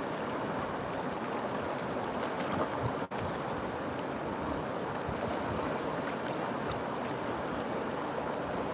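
River water rushing steadily, with a momentary dropout about three seconds in.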